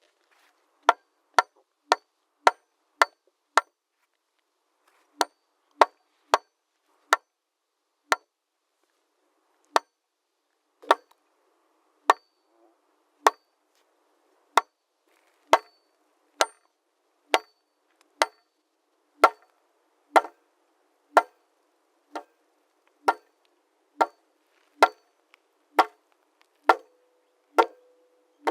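Hammer striking wood: about thirty sharp, separate knocks, mostly in runs of about two a second, broken by pauses of a second or two. A faint steady hum comes in near the end.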